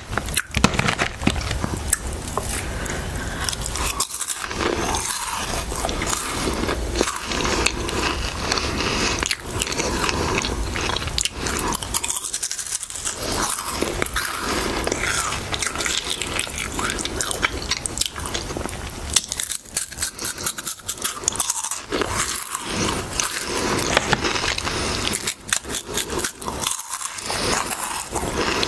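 Close-miked crunching and chewing of green pea snack crisps: a dense, continuous run of crisp crackles and sharp snaps as they are bitten and chewed.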